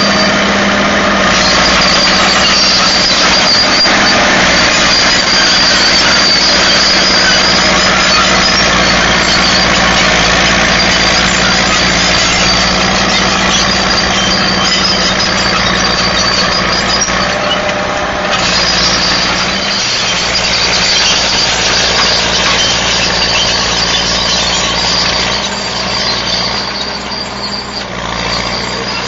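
Caterpillar 955H crawler track loader's diesel engine running as it pushes through brush, with a steady high squeal over the engine. The sound grows fainter near the end as the machine moves away.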